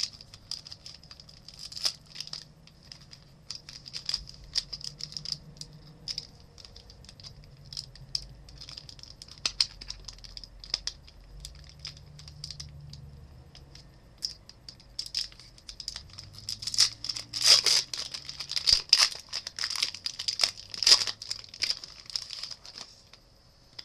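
Trading-card pack wrapper being crinkled and torn open by hand: irregular crackling and rustling, with a dense run of loud crinkles about three quarters of the way in.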